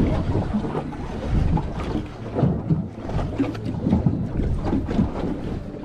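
Wind gusting and buffeting the microphone on a small boat at sea, an uneven rumble rising and falling, with water splashing around the hull.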